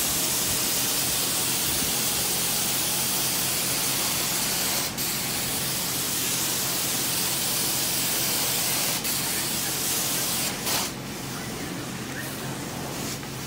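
Carpet-cleaning extraction wand spraying and sucking water through carpet: a steady hiss with brief breaks about five and nine seconds in. It drops to a quieter rush about eleven seconds in.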